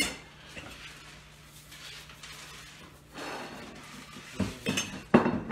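Metal pots and lids clattering on a gas stovetop: a brief scrape about three seconds in, then a cluster of sharp clanks near the end.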